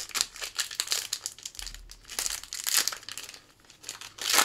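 Foil wrapper of a Sportflics baseball card pack crinkling as it is handled and opened, a run of quick crackles with the loudest near the end.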